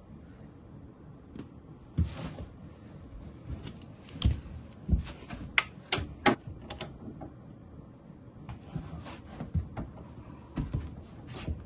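Irregular clicks and small metal knocks of hand tools as the oil drain plug is refitted and tightened in a 125cc junior drag bike's engine.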